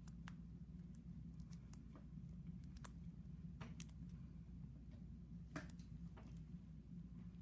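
Faint, scattered clicks and snips of metal surgical instruments, a hemostat clamp and fine scissors or forceps, during excision of a scalp cyst. A steady low hum runs underneath.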